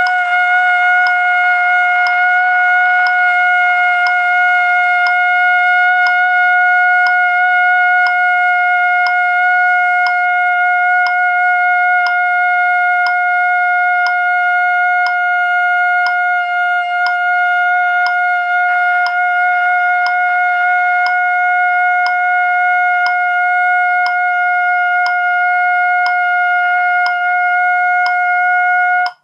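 Trumpet holding one long, steady note as a long-tone exercise, cutting off near the end, with a click about once a second behind it.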